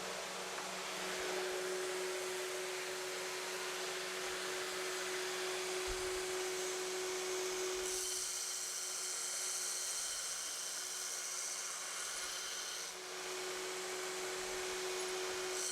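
Belt grinder running with a steady hum and a grinding hiss as the rough stamped edges of a 1/4-inch steel gusset are ground flat. A sharper, higher hiss comes in about eight seconds in, and the sound dips briefly near thirteen seconds.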